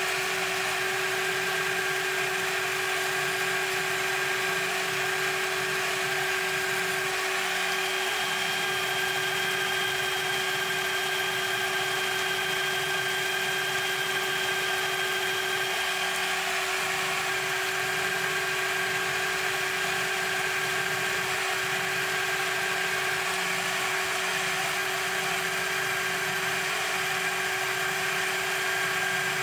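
CNC spindle running steadily with a constant whine as a 1 mm end mill cuts lettering into 4140 alloy steel, over an even hiss of mist coolant spray. A higher whine tone comes in about a quarter of the way through and drops out about halfway.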